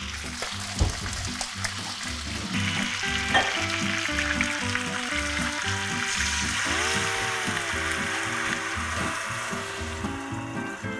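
Background music with a steady bass line, over white wine and then milk being poured into a hot pan of browned chicken, the liquid hissing and sizzling as it hits the hot butter.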